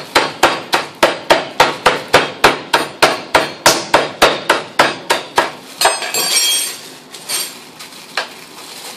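The flat of a steel cleaver tapping down on scallops in a plastic bag on a wooden chopping board, about four sharp strikes a second, smashing them into a paste. About six seconds in the tapping stops, followed by a short scrape of the blade over the bag and two single taps.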